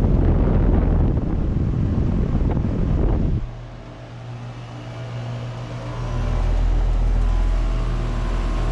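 2006 Amana ASX16 central air conditioner condenser running, with its Copeland scroll compressor humming under the condenser fan. A loud rush of air drops away about three and a half seconds in, leaving a steady hum. A low rumble swells back about six seconds in.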